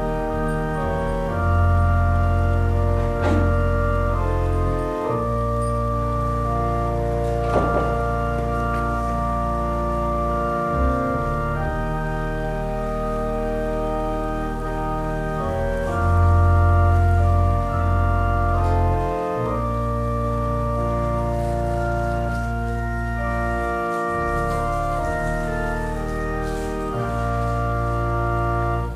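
Organ playing slow, sustained chords over deep held bass notes, the chords changing every second or two.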